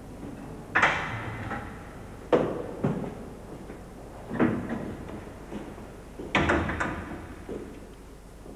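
A door being handled and shut: several sharp knocks and bangs a second or two apart, each with an echoing tail, as in a hard-walled corridor.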